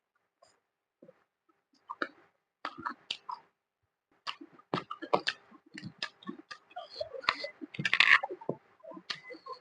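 Close-miked chewing with wet mouth clicks and smacks: sparse at first, busier from about four seconds in and loudest about eight seconds in.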